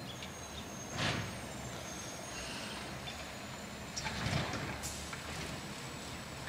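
Garbage truck running steadily, with two short, louder bursts of noise, about a second in and again about four seconds in.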